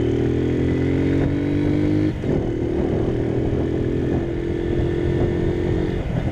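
Motorcycle engine pulling the bike along, its pitch climbing slowly, then a gear change about two seconds in and a steady drone at cruising speed. Near the end the engine note fades under wind noise on the microphone.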